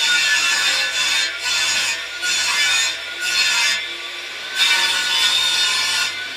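A hand saw cutting wood in repeated back-and-forth strokes, roughly one stroke a second, with a brief lull around the fourth second.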